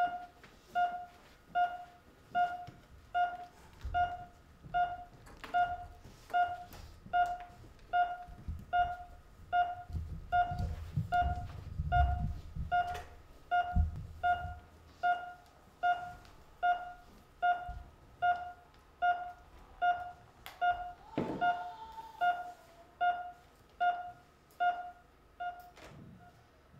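Hospital patient-monitor beeps used as a sound effect: a steady single-pitched beep about every 0.8 s, at a heartbeat's pace, fading out near the end. Low thumps and rumble sit under the beeps in the middle, and a brief higher tone comes a little after twenty seconds.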